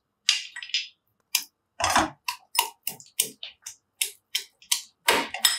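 Garlic being pounded with a pestle in a metal mortar: a steady run of sharp knocks, about three a second, a few of them heavier thuds.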